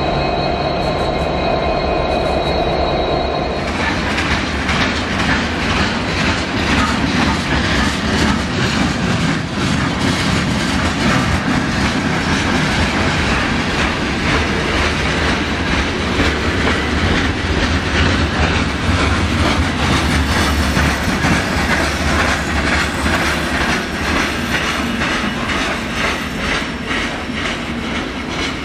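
Freight cars rolling past at speed: steady wheel rumble and rattle with the rapid clack of wheels over rail joints. A high wheel squeal rings over it for the first three and a half seconds, and the sound eases off slightly near the end as the last car goes by.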